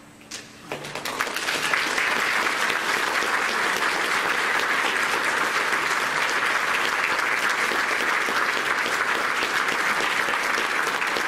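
Audience applauding: a few scattered first claps over a fading low chord, then the applause swells within about two seconds and holds steady and full.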